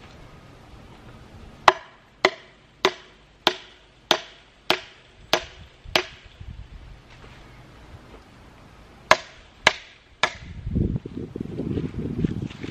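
Hammer striking hard and driving fence staples into a wooden fence post: eight sharp, ringing blows a little over half a second apart, then after a pause three more. Near the end a low rustling rumble sets in.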